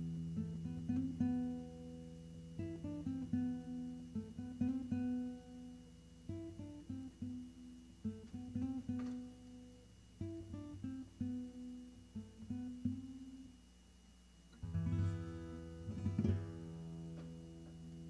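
Acoustic guitar music: picked single notes over a held low note, closing near the end with two strummed chords that ring on and fade.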